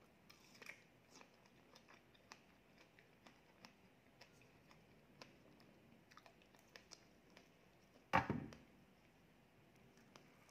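Faint close-miked eating sounds: chewing and small wet mouth clicks as a strawberry is bitten and a cream cheese cake is cut with a spoon. About eight seconds in comes one louder, sudden knock.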